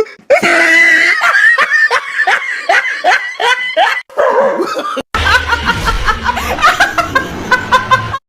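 Hearty, rhythmic human laughter in repeated bursts. About five seconds in there is a brief break, and the laughing resumes over a steady low rumble of background noise.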